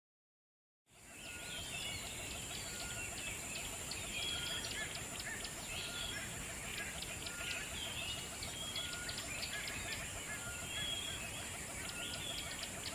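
Outdoor nature ambience of wild birds calling, with many short chirps and whistles. One bird repeats a short note about every second and a half, over a steady high hiss. It fades in about a second in, out of silence.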